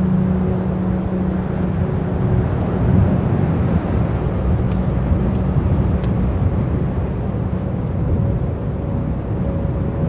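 Strong wind buffeting the microphone: a continuous low, rumbling rush that swells and eases in gusts.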